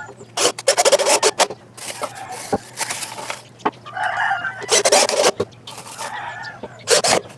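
Chickens clucking and squawking with a rooster crowing, in several loud bursts.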